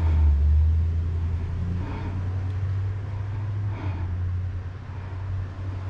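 Steady low mechanical hum, like an engine running, that holds level throughout.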